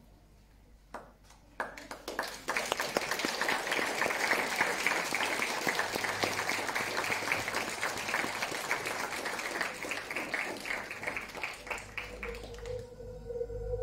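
Audience applause: a few single claps about a second in, swelling into steady clapping from about two seconds in and fading near the end. A steady low tone of background music comes in as the clapping dies away.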